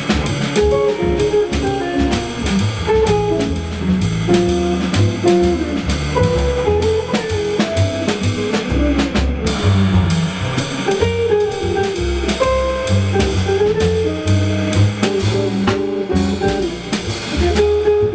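Jazz trio playing live: a guitar picking a melody line over changing bass notes and a drum kit keeping time with cymbals.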